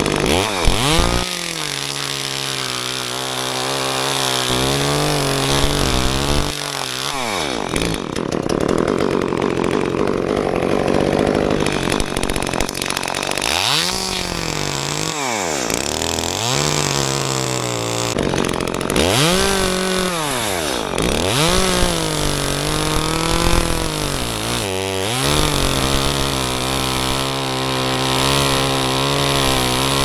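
Gas chainsaw running at high revs, cutting through wood; several times the engine drops toward idle and revs back up.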